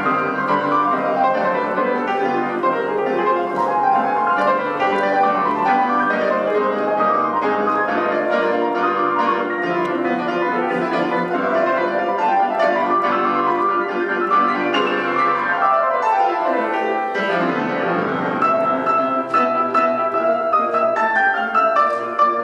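Grand piano played four hands in a classical piano duet: a dense, fast passage, with a run sweeping down from high to low about fifteen seconds in.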